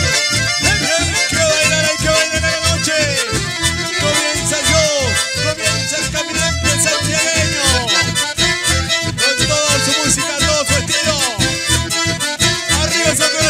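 Live band playing a mainly instrumental passage led by an accordion, with acoustic guitar and a steady bass beat underneath.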